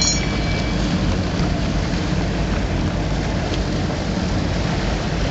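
Boat under way on open water: a steady engine drone under an even rush of wind and water.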